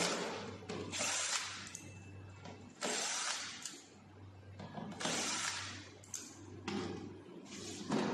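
A series of short clattering, scraping knocks, about one every one to two seconds, over a steady low hum.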